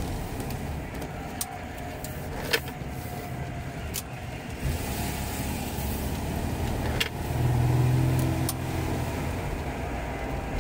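Ford Granada 3.0 V6 heard from inside the cabin while driving: a steady low drone that swells louder about seven seconds in, with a faint whine and a few sharp clicks. The owner suspects the noise comes from the differential, which could be dry of oil.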